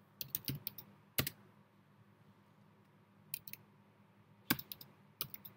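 Computer keyboard keystrokes: typing in short bursts of a few keys, with pauses of up to about two seconds between them.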